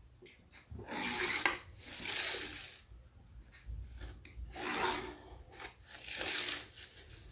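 Pencil scratching along a steel ruler on a cardboard sheet as lines are drawn: four strokes of about a second each, in two pairs.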